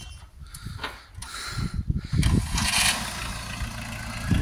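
A homemade tractor's engine starting up: about two seconds of uneven low pulses, then it catches and runs steadily at idle.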